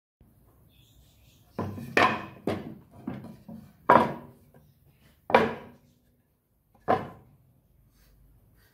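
Wooden boards set down one after another on a table saw's metal top: about seven sharp wooden knocks, each dying away briefly.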